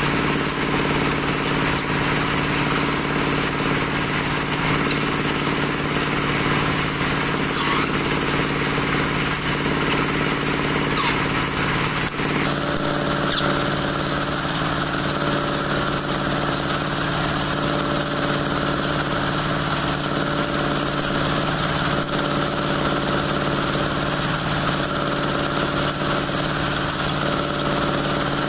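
Dowel machine turning broom handles, running steadily with a constant mechanical drone, its tone changing abruptly about twelve seconds in.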